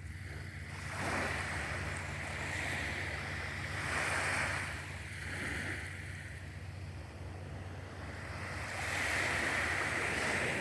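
Sea waves washing onto the shore, the surf hiss swelling and fading three times, over a steady low rumble.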